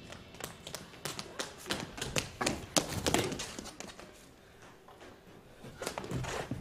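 Tap shoes striking the stage floor: a quick, irregular run of taps that thins out after about three and a half seconds, then a few duller knocks near the end.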